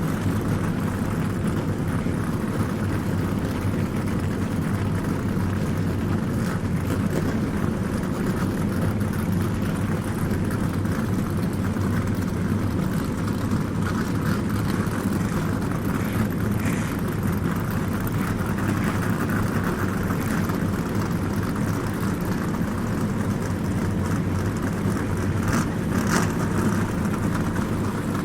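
Stock-car racing engines droning steadily without let-up, with a couple of brief sharper sounds, one near the end.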